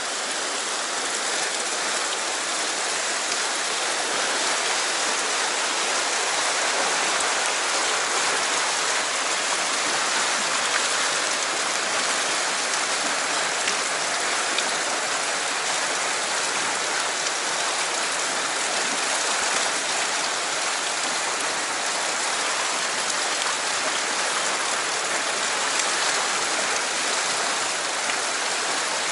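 Steady rush of whitewater pouring past rocks in a fast stream channel.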